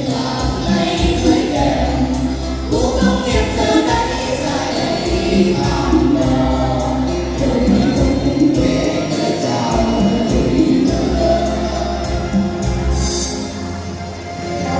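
Nghệ Tĩnh ví giặm folk song sung by voices through microphones, over amplified musical accompaniment with a steady beat of about two strokes a second. There is a brief lull near the end.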